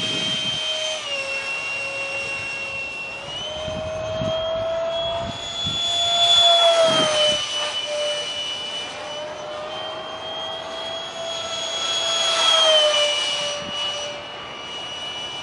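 Detrum 70 mm electric ducted fan on a foam RC flying-wing jet, making a steady high whine in flight that shifts in pitch with the throttle. It swells louder twice, about six and about twelve seconds in, each time dropping in pitch as the jet passes.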